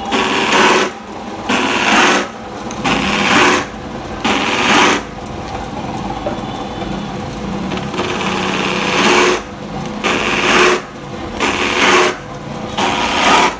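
Electric motor-driven cutter disc cutting slots into grey PVC borewell casing pipe. Each slot is a rasping cut lasting about half a second, about one a second, over the motor's steady hum. Midway there is a pause of about three seconds with no cuts while the motor runs on.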